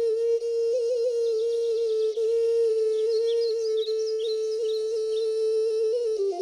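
Background film music: a single long held note with slight wavers, and a run of short high chirps over it in the middle.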